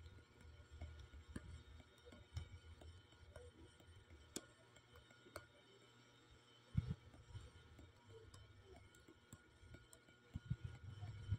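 Near silence: faint room tone with scattered soft clicks and a couple of low thumps, one about two-thirds of the way in and another near the end.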